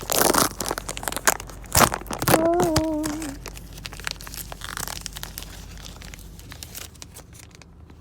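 Foil trading-card booster pack crinkling and tearing as it is opened, loudest in the first three seconds and then fading to faint rustles. A short hummed note comes in about two and a half seconds in.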